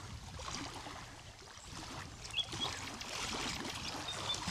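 Outdoor ambience: a steady low rustle and rumble, with a couple of short high bird chirps about two and a half and four seconds in.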